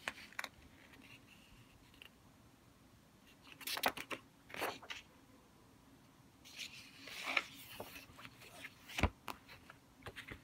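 Pages of a paperback workbook being turned and handled, the paper rustling a few times, with a single sharp tap near the end.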